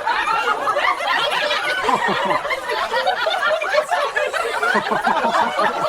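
Laughter that goes on without a break.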